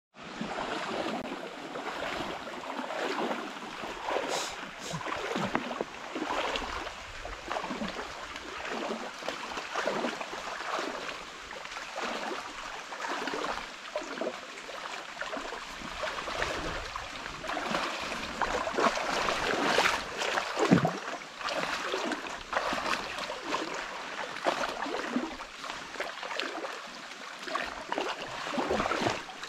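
People wading through knee-deep swamp water, legs pushing through it and splashing in uneven, repeated surges, louder about two-thirds of the way through.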